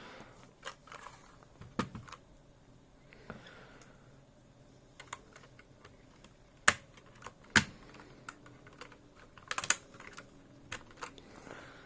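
Scattered sharp plastic clicks and taps of a lubed, filmed MX-style keyboard switch being pushed and worked into the keyboard, not yet seating. The two loudest clicks come about a second apart past the middle, with a quick cluster of clicks near the end.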